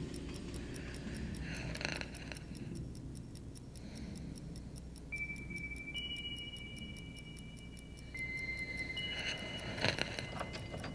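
Bedside clock ticking steadily, with a few high held tones entering about halfway through.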